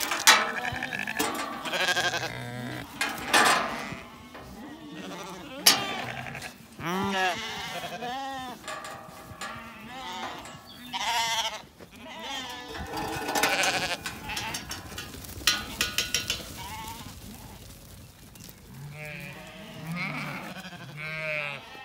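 A flock of Zwartbles sheep bleating over and over, many short calls overlapping. Sharp metallic clanks and a quick rattle about two thirds of the way through come from the galvanised steel field gate being worked open.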